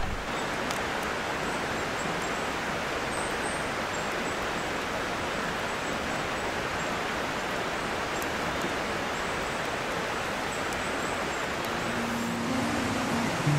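Steady, even rushing of a mountain stream running through the gorge.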